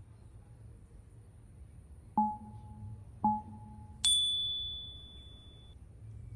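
Three chime tones: two short, lower ones about a second apart, then a higher, brighter one that rings out and fades over nearly two seconds.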